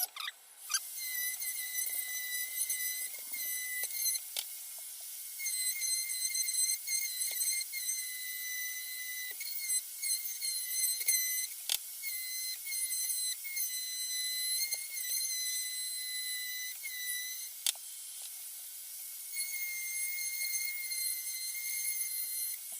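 Dremel 4300 rotary tool running with a high-pitched whine. The pitch dips briefly again and again as the bit bites into the cedar, and there are a few sharp clicks.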